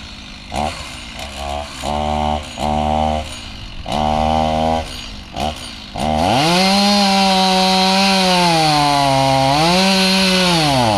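Chainsaw revved in several short throttle blips, then held at full throttle from about six seconds in. Near the end its pitch dips and recovers twice as the chain bites into the tree trunk under load.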